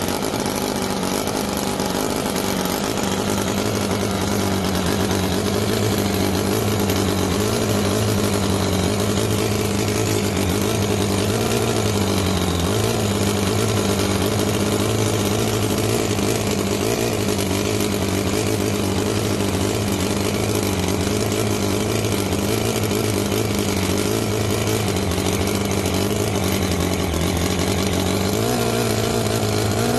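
ENJOMOR 10cc Whippet single-cylinder four-stroke flathead (side-valve), water-cooled petrol model engine running fast and steady. Its speed sags briefly about twelve seconds in and picks up slightly near the end.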